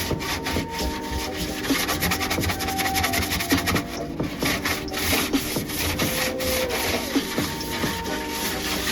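Rapid repeated scrubbing strokes on a refrigerator surface during cleaning, with soft looping background music underneath.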